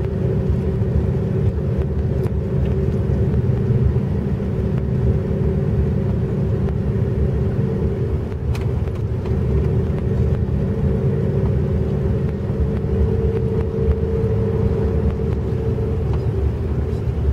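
Road noise of a car driving slowly, heard from inside: a steady low rumble of tyres and engine with a steady hum over it.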